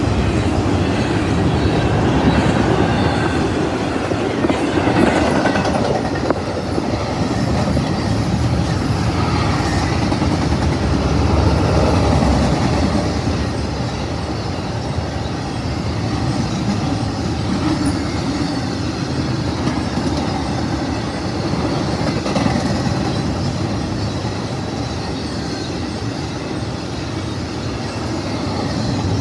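Intermodal freight train rolling past, its cars of trailers and containers running on the rails in a loud, continuous, steady noise.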